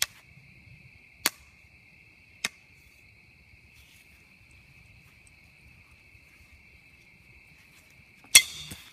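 A loud sharp crack near the end as a baseball bat smashes a plastic fidget spinner, with a short clattering tail. A few sharp clicks come in the first few seconds, over steady night insect chirping.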